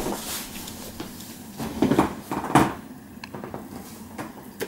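Close-up knocks, rustles and clicks of someone moving in and handling things right by the microphone, loudest in a cluster of knocks about two seconds in, with a few single clicks after.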